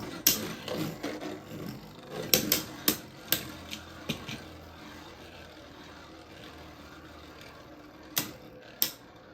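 Two Beyblade Burst spinning tops clashing in a plastic stadium: sharp clicking hits for the first few seconds, then a steadier spinning hum as they settle into a stamina battle, with a couple more knocks near the end.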